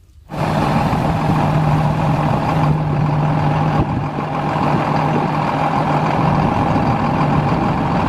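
A heavy dump truck's engine running steadily with a low, even hum while its hydraulic hoist tips the dump bed up.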